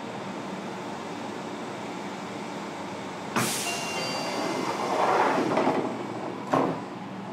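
A Fukuoka City Subway 1000N-series car stands with its equipment humming steadily, then its doors close. A sharp burst of air comes about three and a half seconds in, then a rising rush as the doors slide. A hard thud follows as they shut about six and a half seconds in.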